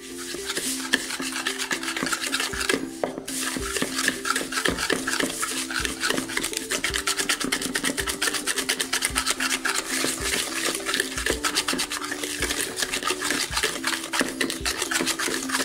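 Wire whisk beating butter and brown sugar in a large bowl, creaming them together. The wires scrape the bowl in quick, steady strokes, with a brief pause about three seconds in.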